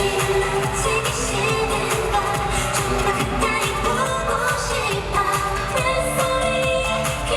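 K-pop girl-group song played live: women's singing over a dance-pop backing track with a steady beat, heard through a concert venue's sound system.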